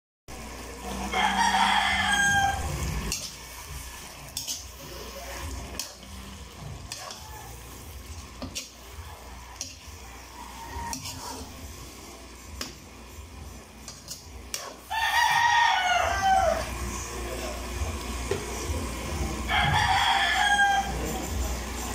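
A rooster crows three times: about a second in, around fifteen seconds in, and near the end. Between the crows a metal spatula clicks and scrapes against the metal wok.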